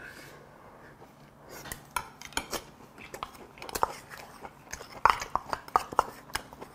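Close-up chewing of braised kimchi and rice, with wooden chopsticks and a wooden spoon clicking and scraping against a small stainless steel rice bowl. The clicks start about a second and a half in and come thickest near the end.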